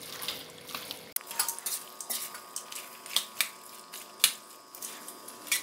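Steel spatula scraping and tapping against a pan while mixing a thick tapioca-and-beef mash, in irregular strokes about two or three a second.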